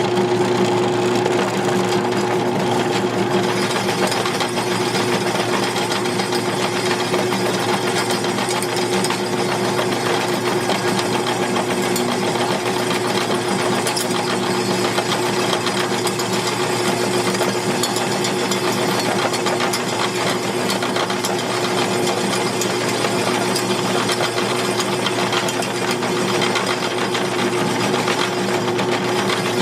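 Drill press motor running with a steady hum and constant tone as its oiled bit drills out the stripped cylinder-stud threads in a Honda CB750 engine case, cutting a clean straight hole for a Helicoil thread insert.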